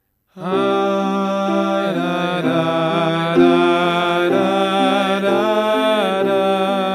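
Music: a slow Ashkenazi High Holy Day prayer melody (nusach for Rosh Hashana), a gliding melody line held over sustained chords that change every second or so. It begins just after the start.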